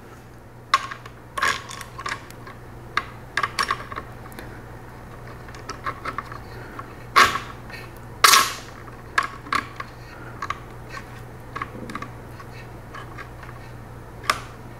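Scattered small clicks and taps of metal parts as a CPU water block's metal mounting plate is fitted down over threaded mounting posts around the processor socket, with two louder clicks about a second apart midway. A steady low hum lies underneath.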